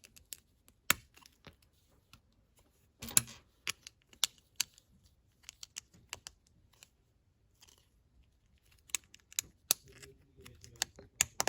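Small plastic Lego bricks clicking as they are handled and pressed together: scattered sharp clicks, a quick cluster about three seconds in and a few more near the end.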